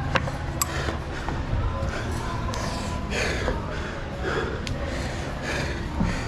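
A lead climber breathing hard from exertion, heavy rushing breaths about once a second, with a few sharp clicks among them.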